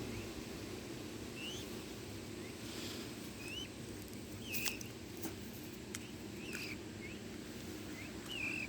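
A bird chirping repeatedly in short, hooked notes, about one a second, with a few faint clicks in between.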